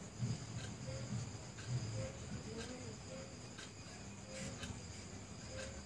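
Faint, steady chirping of crickets, with soft brush strokes rubbing on the thermocol surface.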